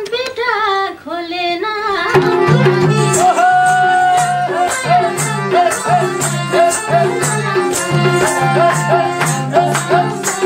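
A sung phrase ends about two seconds in, and the band's instrumental interlude takes over: a harmonium melody over a steady madal drum rhythm, with hand clapping keeping time.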